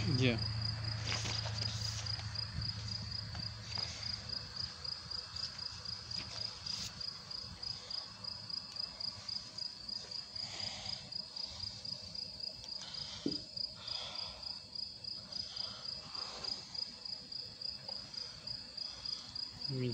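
A cricket chirping steadily: a high-pitched, rapidly pulsing chirp that keeps going without a break.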